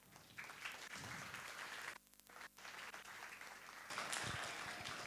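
Audience applauding, fairly faint, with a brief break about two seconds in.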